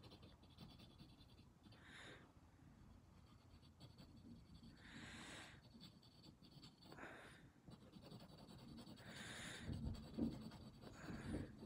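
Faint pencil scratching on paper in short bursts of shading strokes, with two low bumps near the end.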